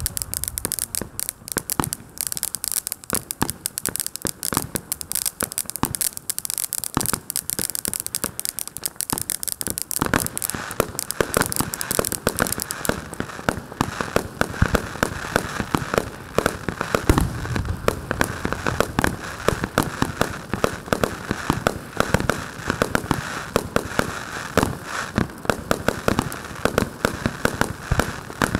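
Chinasky EP-1064 star-shaped ground fountain firework spraying sparks with continuous dense crackling. About ten seconds in, the high sizzle gives way to a steadier, lower hiss under the crackle.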